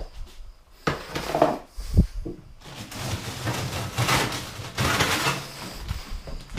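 Clattering, scraping and knocking as the drawers and contents of a dead fridge freezer are handled while it is emptied out, with a sharp thump about two seconds in.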